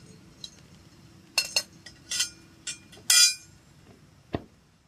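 Metal clinking as an 8-inch Dutch oven is set onto a small folding metal wood stove: about five sharp clinks over two seconds, then a single dull knock near the end as it settles.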